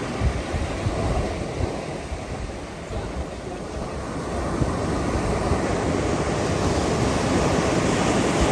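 Sea surf washing onto the beach, a steady rushing that swells slowly, with wind buffeting the microphone.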